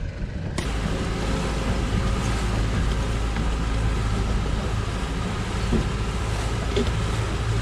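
Boat's outboard motor running in gear, a steady low hum under a loud hiss that comes in abruptly about half a second in.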